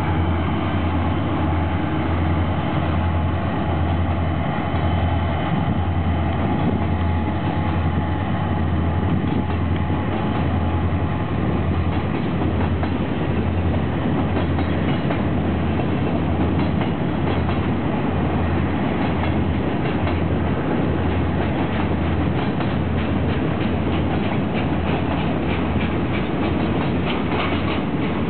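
EMD GP40-series diesel locomotives pass, their engines running steadily. About ten seconds in, the engine tones give way to a long string of freight cars rolling by, wheels clicking rhythmically over the rail joints.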